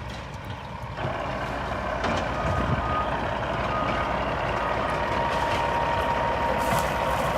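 Heavy diesel construction vehicle running, its reversing beeper sounding a high steady tone over the engine rumble. The engine gets louder about a second in, and there is a short hiss near the end.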